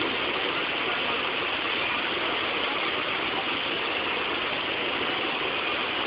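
Steady rush of a waterfall, water pouring over rocks into a pool.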